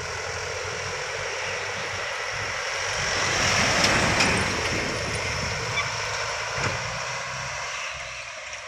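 Trucks passing close by on a road: engine and tyre noise that swells to its loudest about four seconds in as a large vehicle goes right past, then fades as it drives away.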